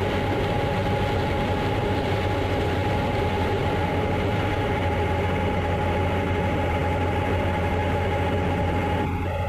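Heavy farm harvest machinery running steadily, a constant low drone with a steady high whine over it and a brief dip near the end.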